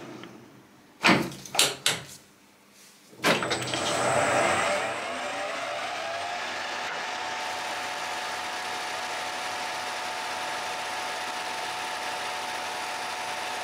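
Colchester 1800 manual lathe: a few sharp clunks, then near quiet, then the drive starting up about three seconds in, its pitch shifting as it comes up to speed. It settles into a steady run with a steady gear whine while turning a leaded EN1A steel bar.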